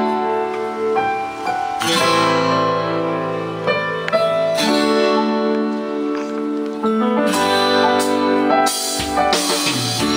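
Recorded music with guitar, played back through a loudspeaker driven by the just-repaired Staner µPA-2000 power amplifier as a test that it passes audio again.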